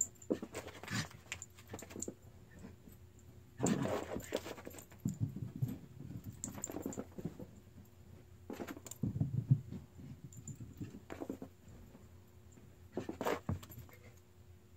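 A dog scrambling and scuffling across carpet and floor in several irregular bursts, with light metallic jingling, typical of its collar tags as it dashes about.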